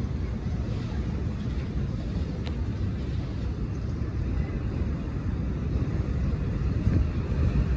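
Steady low rumble of distant road traffic mixed with wind buffeting the microphone.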